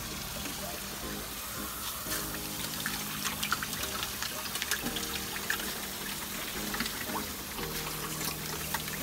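Water pouring and trickling into a tilapia tank from a recirculating system, with many short droplet splashes, over background music with held chords.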